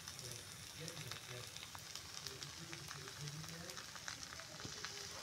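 Julienned potatoes and fish roe frying in oil in a pan: a steady sizzle with many small crackling pops.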